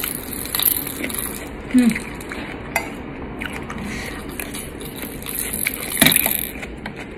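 Close-miked eating: a metal spoon scraping and clinking against a ceramic plate a few times, the loudest clink about six seconds in, between spoonfuls being chewed.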